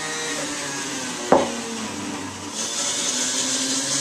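A centrifugal juicer's motor runs with a steady hum while a knife cuts through a lemon on a wooden cutting board, with one sharp knock of the blade on the board about a second in. From about two and a half seconds in, the sound grows louder and hissier.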